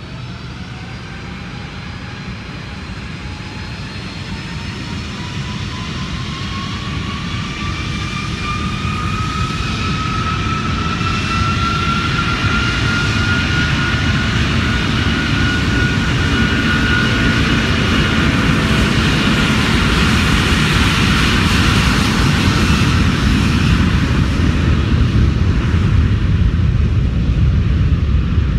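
Airbus A330 with Rolls-Royce Trent 700 turbofans on its take-off roll. The engine whine rises steadily in pitch over the first dozen seconds, then holds, over a deep rumble that grows louder and stays strong as the jet passes and rotates.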